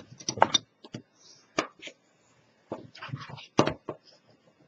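Stiff cardstock being handled on a cutting mat and a bone folder run along its folded top edge: a series of short taps, rustles and scrapes, the loudest about three and a half seconds in.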